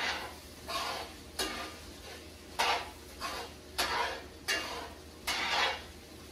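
A utensil stirring and scraping a thick tomato-paste and wine mixture around a cast-iron skillet over high heat, in strokes about a second apart, with a low sizzle between them.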